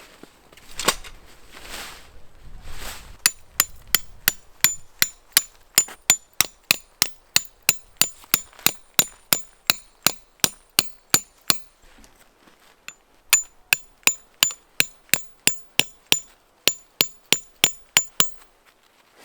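Hammer strikes on metal tent pegs being driven into the ground, evenly paced at about three blows a second, each with a short metallic ring. The blows come in two long runs with a short pause between them, after a few softer knocks at the start.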